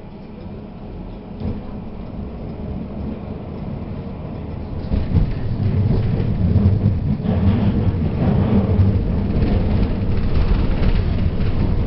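Tatra T4D-M tram running, a low rumble of its motors and wheels on the rails that grows louder about five seconds in as it gathers speed.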